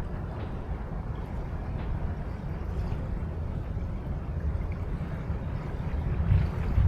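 River-bank ambience: small waves lapping over a steady low rumble, swelling slightly near the end.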